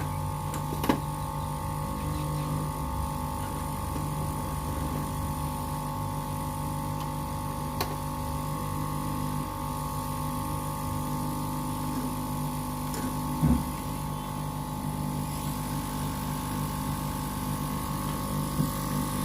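SMD hot-air rework station running steadily, its blower humming as it heats a mobile phone's circuit board to melt the solder of the charging jack. A few faint clicks, and a short knock about two-thirds of the way through.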